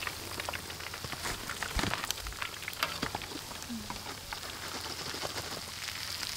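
Hot oil sizzling in a wok as chicken legs deep-fry: a steady hiss full of small crackles and pops, with a soft knock about two seconds in.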